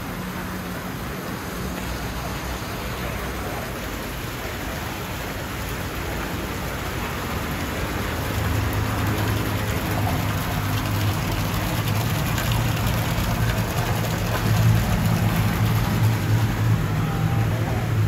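Water splashing and bubbling in aerated live-seafood tanks: a steady hiss of falling water and rising air bubbles. A low hum grows louder about halfway through.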